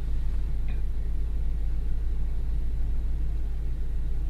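Van engine idling: a steady low rumble.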